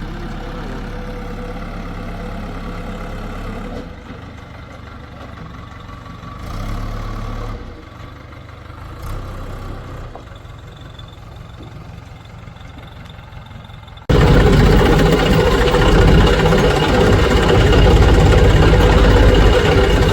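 Heavy diesel machinery engines running steadily. About two-thirds of the way through, the sound jumps abruptly to a much louder, closer engine running.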